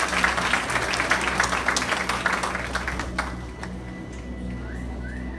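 Audience applause, a dense crackle of many hands clapping, that dies away about three seconds in, with music playing steadily underneath.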